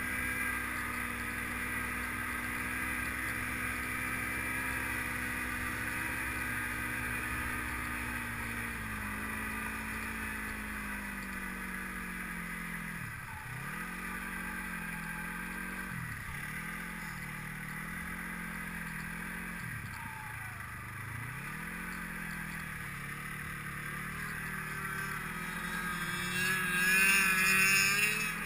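Snowmobile engine running while riding over snow, heard from the machine itself. The engine note drops about a third of the way in, dips and picks up again three times, then climbs and is loudest just before the end.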